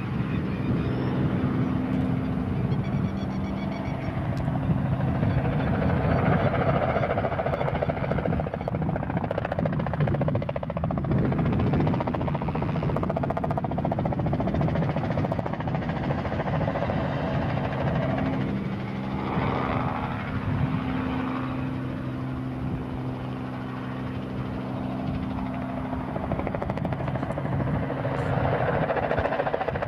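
Robinson R44 helicopter flying low and manoeuvring, its piston engine and rotor running steadily. The sound swells and fades slowly as the helicopter moves, dipping a little past the middle and growing louder near the end.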